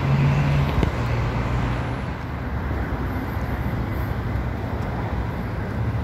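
Steady rumble and hiss of road traffic with a low hum.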